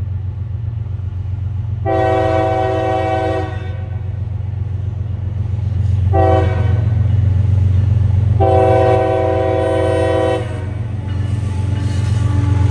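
Diesel freight locomotive's multi-chime air horn sounding a long, a short and a long blast, the pattern used when approaching a grade crossing, over the steady low drone of the locomotive's engine, which grows louder near the end as the train draws closer.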